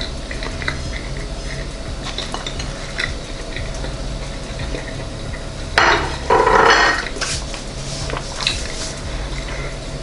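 Dishes clinking on a kitchen counter, with light clicks throughout and a louder clatter lasting about a second, around six seconds in.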